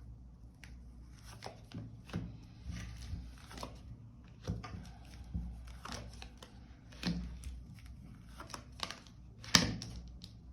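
Tarot cards being handled and laid out: papery rustling and a series of sharp card taps, the loudest near the end.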